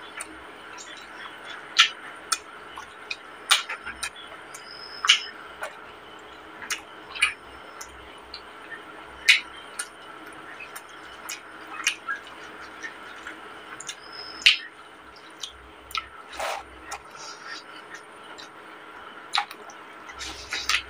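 Close-miked eating by hand: irregular wet mouth clicks and smacks while chewing rice and chicken curry, with fingers squishing rice on a plate, over a steady background hum.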